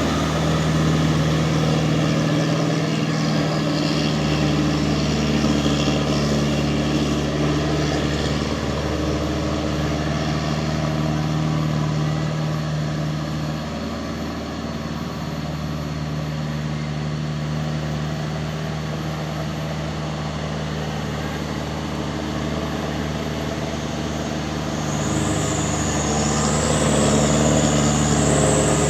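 Truck diesel engine running steadily under way. It eases off about halfway, then builds again near the end, when a high wavering whine comes in.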